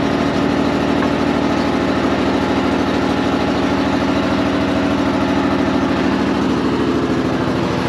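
Bobcat skid steer's engine running steadily at an even speed.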